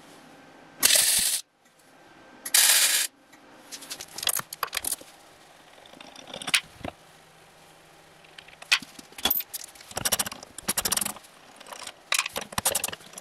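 Metal hand tools clinking and scraping on the bolts and steel plate of a motor mount. Two short, loud bursts of noise come in the first three seconds, then scattered metallic clicks and clinks.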